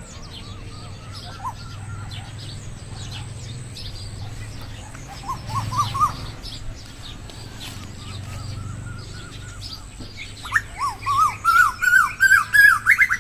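A bird calling in quick series of short, up-and-down whistled notes. A loud run starts about ten and a half seconds in and climbs steadily in pitch, with fainter chirps from other birds higher up.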